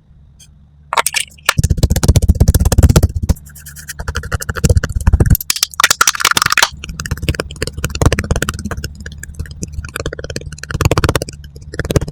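Rapid scratchy scraping and tapping in dense runs with short gaps: ASMR makeup sounds of tools working over a cantaloupe's rind.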